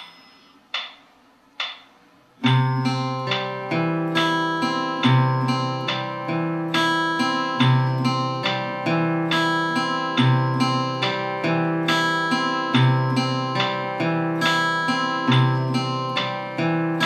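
Steel-string acoustic guitar fingerpicked in a triple-time (3/4, 6/8) broken-chord pattern: each bar opens with a bass note, then the upper strings are picked one by one. Playing begins about two and a half seconds in, after three short clicks a little under a second apart.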